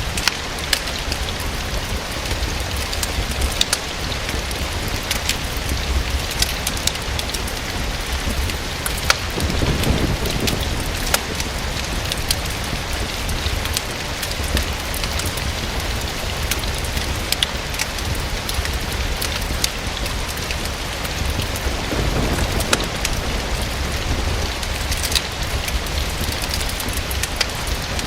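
Steady rain falling against a window, a continuous hiss dotted with sharp ticks of single drops. Underneath runs a low rumble that swells briefly twice.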